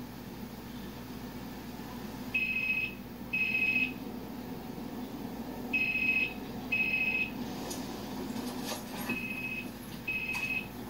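A telephone ringing with a steady electronic tone in pairs of short rings, three pairs in all, the first pair starting a couple of seconds in.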